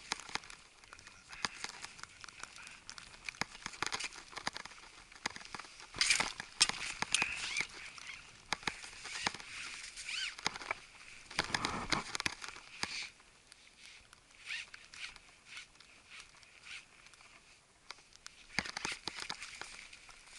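Irregular crunching and scuffing of a climber moving across steep snow, with the rustle of clothing and gear close to the microphone; a louder cluster of scuffs comes about halfway.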